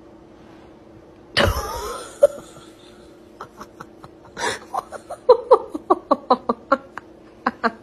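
A sudden loud blast about a second and a half in, then a person laughing hard in quick short bursts, several a second, through the last few seconds.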